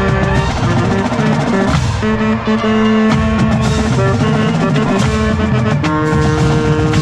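Marching band playing loud held chords on brass and woodwinds over drums, the chord changing every second or two, with sharp drum and cymbal hits.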